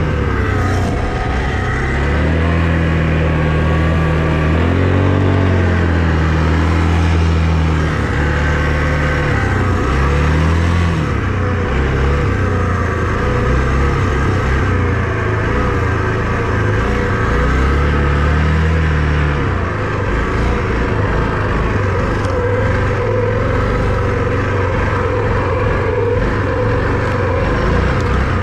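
Small all-terrain vehicle engine running under load while being ridden, its engine speed rising and falling again and again, then holding steadier for the last third.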